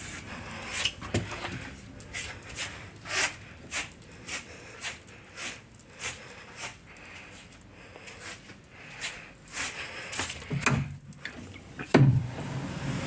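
Irregular clicks and rustles, about one or two a second, with a louder thump near the end.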